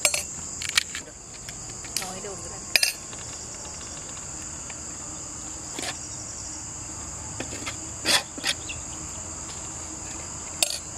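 A steady high-pitched chorus of crickets, with a few sharp crunches every second or two as crisp fried pani puri shells are cracked.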